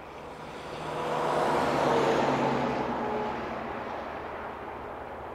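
A road vehicle passing close by, its noise swelling to a peak about two seconds in and fading away over the next two seconds.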